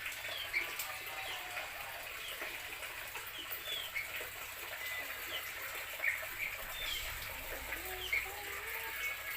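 Outdoor birds calling: many short, high, falling chirps from small birds, with a few lower wavering calls, mostly late on, that fit farmyard fowl or doves.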